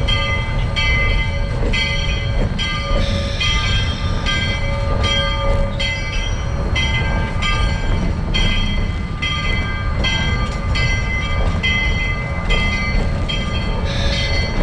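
Georgetown Loop #40, a Baldwin 2-8-0 steam locomotive, running slowly under way, heard from its cab: a steady low rumble with a repeating beat about twice a second and high ringing tones over it.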